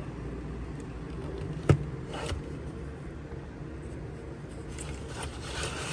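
Handling noise from a plastic smoke-alarm housing: one sharp click nearly two seconds in and a lighter one just after, with rustling near the end, over a steady low hum.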